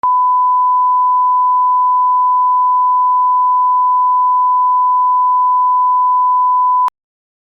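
A steady 1 kHz sine tone, the headphone calibration tone for a hearing test, held at one pitch for about seven seconds. It switches on and off abruptly, with a faint click at each edge.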